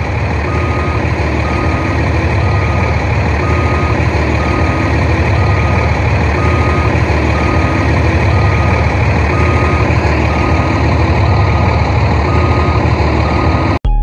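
Heavy truck engine running steadily with a reversing alarm beeping about twice a second; it cuts off abruptly near the end.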